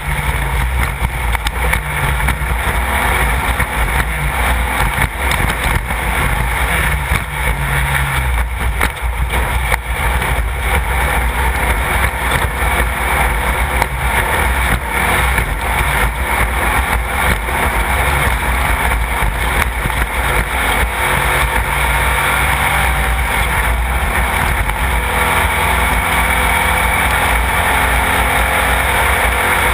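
A Class 1/2-1600 off-road race car's air-cooled Volkswagen flat-four running hard under load. Its pitch shifts up and down during the first third and is steadier after, under a constant noisy rush with many short knocks.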